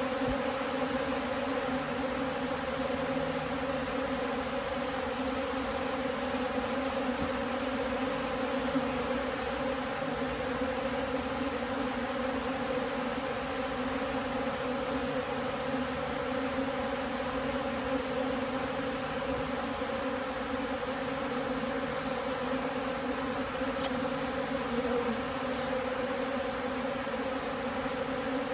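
Honeybee colony humming steadily, a dense drone of many wingbeats that sits as a low hum with a second, higher hum above it. The colony is short of food.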